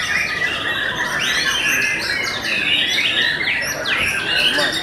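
Young white-rumped shamas (murai batu) singing in competition: a dense, unbroken tangle of overlapping whistles, rapid sweeping phrases and chattering notes from several birds at once.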